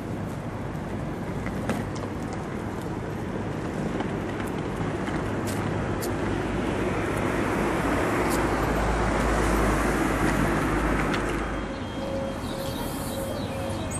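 Distant train and city traffic noise that swells and then fades. About three-quarters of the way in it cuts to an EN57AL electric multiple unit standing at a platform, with a steady electrical whine from the unit.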